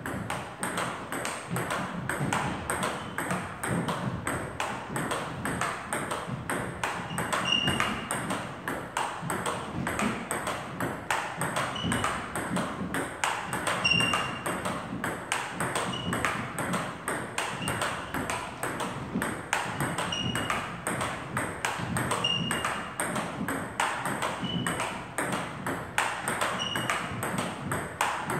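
Celluloid-type table tennis ball in a fast continuous rally, cracking off rubber paddles and bouncing on the table in a quick, steady stream of sharp clicks.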